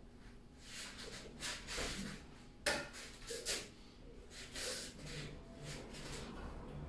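A staff being swung and spun through the air: a string of short whooshes, with one sharp crack about two and a half seconds in, the loudest moment.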